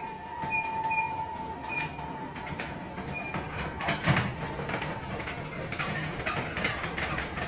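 Electric treadmills running, with short beeps from the control panel as its buttons are pressed in the first few seconds. Then a quick, steady patter of footfalls as an Alaskan Malamute and a man run on the belts.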